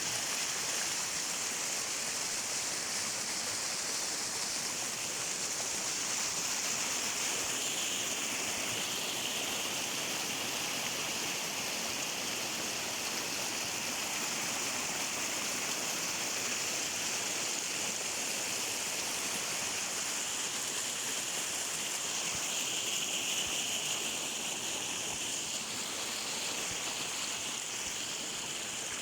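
Stream flowing steadily: a constant, even rush of running water with a hissy, bright edge.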